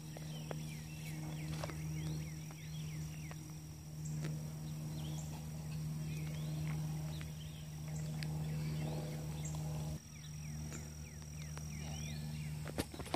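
A steady low hum with many short, rising bird chirps over it; the hum drops out for a moment about ten seconds in, and there is a sharp knock near the end.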